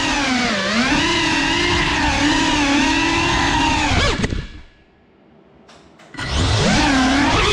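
Brushless motors and propellers of a GEPRC CineLog 35 FPV cinewhoop whining, the pitch rising and falling with the throttle. About four seconds in the throttle is cut and the whine drops away to a faint hiss. Just after six seconds the motors spin back up to full whine.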